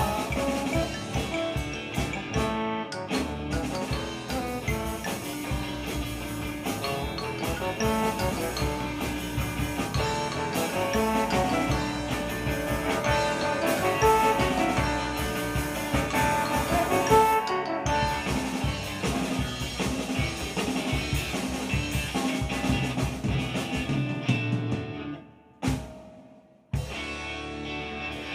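Small instrumental rock band playing live, with drum kit and electric guitar under a melody line. Near the end the tune breaks off with one last hit and about a second of silence, then quieter guitar playing starts.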